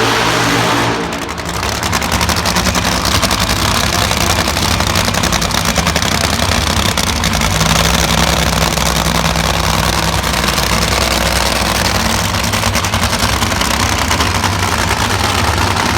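Supercharged nitromethane drag-racing engines at the strip running loudly. A louder burst dies away about a second in, then the engines settle into a steady, rapid-firing idle.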